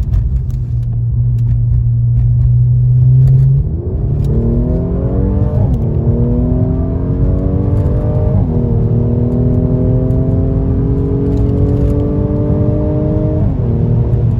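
Mercedes-AMG C43's 3.0-litre twin-turbo V6 through an AWE Track Edition exhaust with no mufflers, heard from inside the car. It holds a steady low drone while cruising, then accelerates hard, its note rising and dropping back at each of three upshifts.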